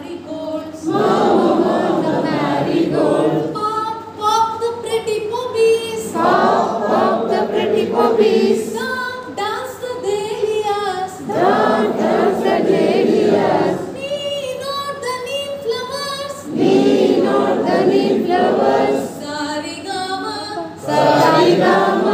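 A woman leading a group of voices in an unaccompanied call-and-response song: her single voice sings a line, then the group sings back louder together, alternating every couple of seconds.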